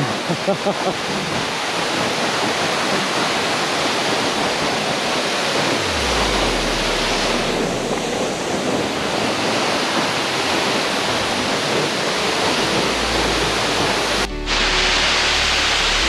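Steady rushing of a waterfall. About six seconds in, background music with low bass notes comes in under it, and it becomes clearer after a sudden cut near the end.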